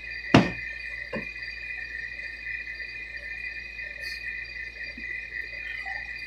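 A sharp knock about half a second in and a softer one a moment later, over a steady high-pitched two-tone whine.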